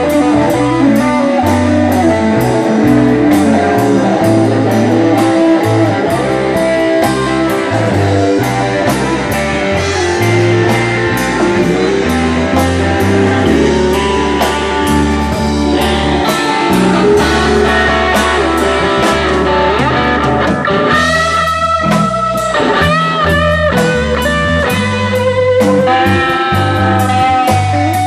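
Live blues-rock band playing: two electric guitars over bass and a steady drum beat. In the last several seconds a lead guitar holds long notes that waver in pitch.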